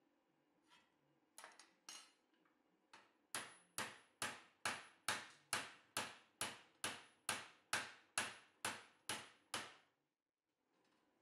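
Hand hammer striking a flat steel bar clamped in a bench vise, bending it over the jaws. A few light knocks, then a steady run of about fifteen sharp metallic blows, a little over two a second, stopping shortly before the end.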